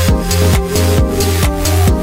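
Electronic dance music: a steady kick-drum beat a little over two beats a second over a bass line and sustained synth notes.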